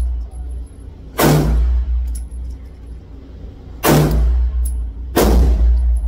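Three handgun shots fired at an uneven pace, about a second in, near four seconds and a second after that, each ringing out briefly off the concrete-block walls of an indoor range, over a steady low hum.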